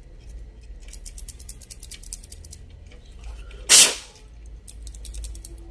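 Small plastic slide switch on an electric mosquito racket clicking rapidly as it is worked back and forth, freshly flushed with thinner to loosen carbon buildup in its contacts. A short, loud hiss cuts in about four seconds in.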